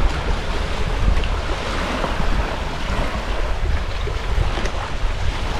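Steady wind buffeting the microphone: a continuous low rumble under a hiss of breeze.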